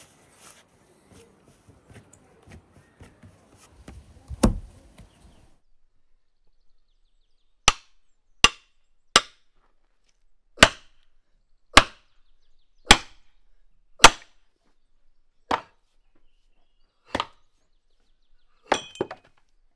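An axe splitting firewood on a chopping stump. There is one heavy thud about four seconds in, then about ten sharp chops roughly a second apart, with a quick double strike near the end.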